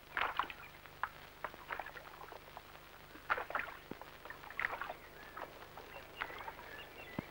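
Canoe paddles dipping into canal water and pulling through it, a string of irregular splashes with a few stronger strokes.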